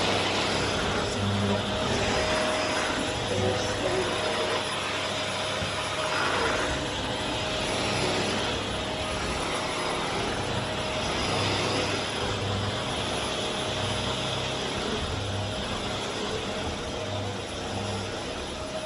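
Vax Air Steerable Max upright vacuum cleaner running steadily at full suction: a constant motor whine over the rush of air.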